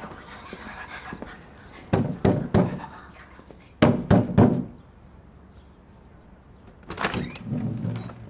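Knocking: two sets of three sharp knocks about a second and a half apart, then a longer, lower sound about seven seconds in.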